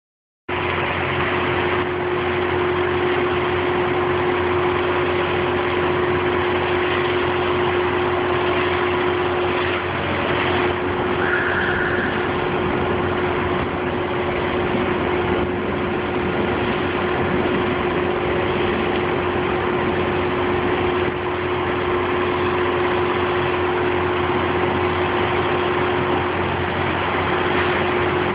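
Concrete mixer truck's engine running steadily, with a constant hum.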